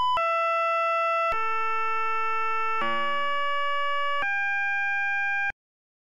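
Synthesized pure tones from Mandelbrot set orbits: each clicked point's repeating orbit is played as a sound wave, its X and Y coordinates driving the left and right speakers, so the orbit's period is heard as a steady fundamental pitch with overtones. The tone jumps to a new pitch four times, one of them a richer, denser chord, then cuts off suddenly.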